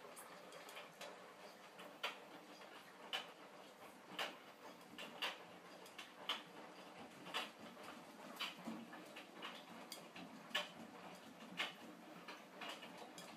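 Hotpoint Smart 9kg washing machine drum turning a wet load of laundry in the wash: a steady swishing with a sharp click about once a second and fainter ticks in between, in time with the drum's rotation.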